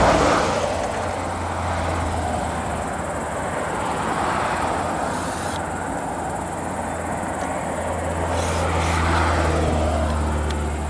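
Road traffic passing on a highway: a steady low hum with broad road noise that swells as a vehicle goes by at the start, eases off, and swells again with another about nine seconds in.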